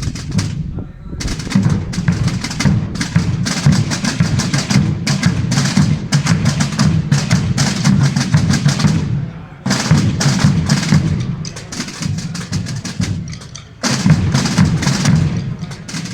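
Holy Week procession drum corps: many snare-type tambores and bass bombos playing together in a dense, fast rolling pattern. The drumming drops back about ten seconds in, eases further, and comes back in loud about fourteen seconds in.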